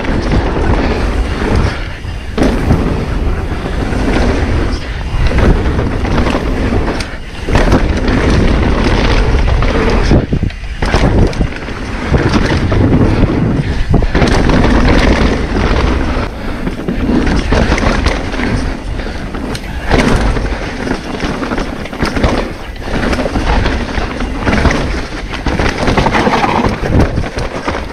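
Wind rushing over the microphone with the rolling noise, knocks and rattles of a mountain bike riding fast down a dirt trail, surging and easing with speed.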